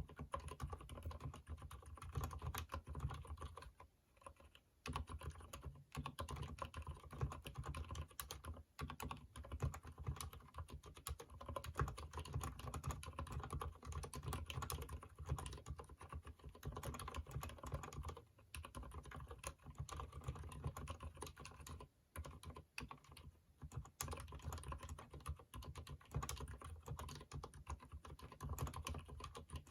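Typing on a Durgod keyboard with lubed Cherry MX Silent Red switches: a fast, irregular run of keystrokes, broken by a few short pauses.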